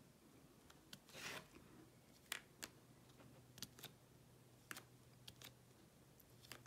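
Faint, irregular light clicks and taps of a diamond-painting drill pen picking up resin drills from the tray and pressing them onto the canvas, about a dozen over the few seconds.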